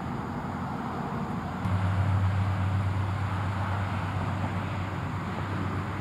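Wind and outdoor road noise, with a steady low engine hum that comes in about two seconds in and holds.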